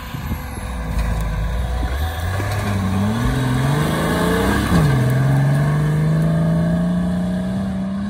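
Nissan Patrol off-road 4x4 engine accelerating hard, the revs climbing, dropping sharply once nearly five seconds in at a gear change, then pulling up again as it drives away.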